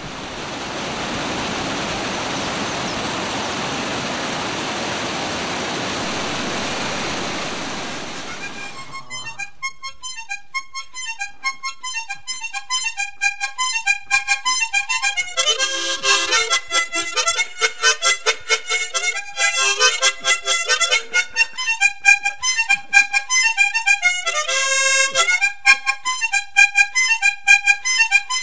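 Rushing water of a stream and small waterfall, a steady even noise, for about the first nine seconds. It then fades, and background music with a harmonica playing quick, short notes takes over.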